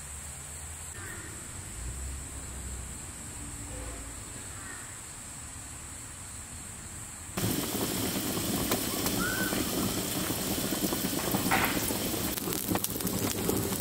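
Quiet outdoor ambience with a steady high hiss and a few faint bird chirps. About seven seconds in it switches suddenly to rain falling: a dense steady patter with many small drop ticks.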